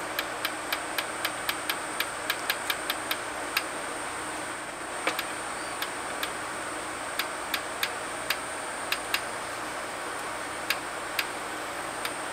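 Sony CDP-491 CD player's mechanism ticking sharply and irregularly, several ticks a second for the first three seconds, then sparser, over a faint steady hum. It is the player's intermittent fault still showing.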